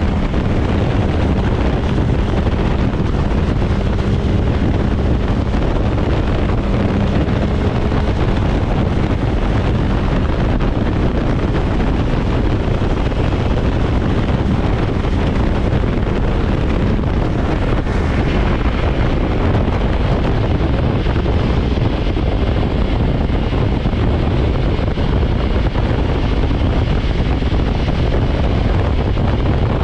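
Wind noise rushing over the microphone on a moving BMW S1000XR motorcycle, with the bike's inline-four engine running steadily underneath.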